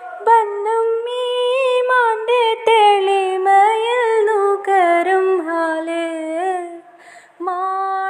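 A female voice singing a slow Malayalam song melody unaccompanied, in long held notes that waver and glide, with a brief pause a little before the end.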